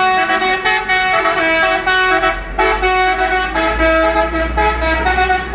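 Multi-tone vehicle horns playing a tune, their pitch stepping up and down every fraction of a second, over a steady low rumble of traffic.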